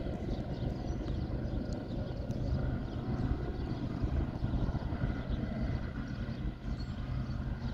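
Steady low rumble of a distant BNSF freight train's diesel locomotive running as the train moves away.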